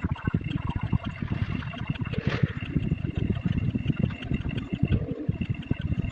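A dense, rapid jumble of sound effects sped up many times over, heard as a fast, crowded clatter of short clicks with a steady high tone running through it.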